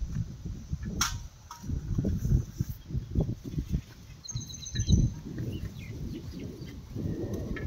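Gusts of wind buffeting the microphone, with birds chirping: a quick run of high notes about halfway through and a few short calls near the end. A sharp click about a second in.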